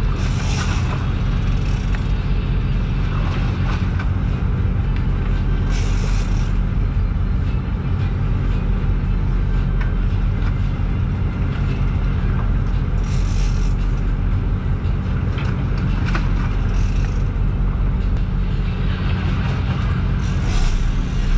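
Boat engine running steadily at a low drone, with short bursts of hiss about five times.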